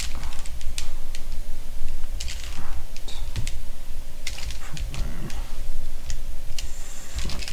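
3x3 Rubik's cube being turned by hand: quick, irregular plastic clicks and clacks as the layers are twisted, while the second layer's last edge is put in place.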